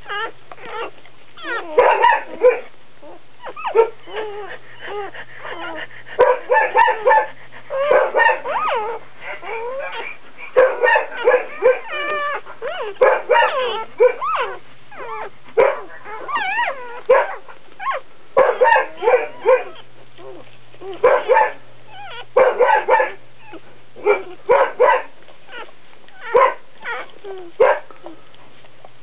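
Doberman whimpering and squealing during whelping: clusters of short, high-pitched, wavering cries that come again and again with brief pauses between them.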